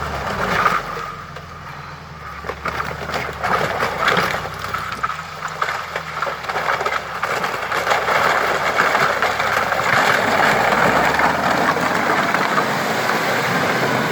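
Off-road vehicle engine running under load as it crosses a muddy forest ditch, with a dense rushing, crackling noise that grows louder over the second half.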